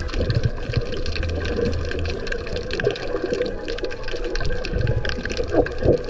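Underwater sound picked up by a camera submerged in the sea: a steady muffled rush of water with dense crackling clicks. Near the end there is a short, louder wavering sound.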